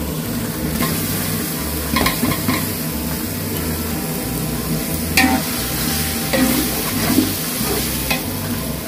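Onion and ginger-garlic masala sizzling in hot oil in a large metal pot while a perforated steel ladle stirs and scrapes through it, with chopped tomatoes just added. A few sharper scrapes or knocks of the ladle against the pot stand out.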